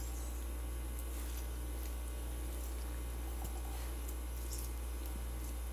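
A lemon being squeezed by hand over a plate, with faint small drips and squelches of juice over a steady low hum.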